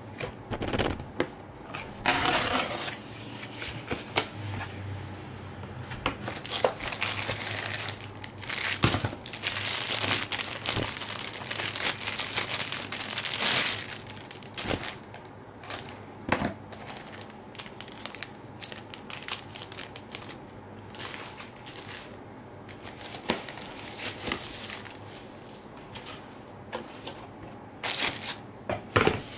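Cardboard box packaging and plastic wrapping being handled by hand: irregular rustling, crinkling and scraping of card and plastic as the cardboard insert and the bagged and bubble-wrapped contents are lifted out. The handling is busiest in the first half and quieter later.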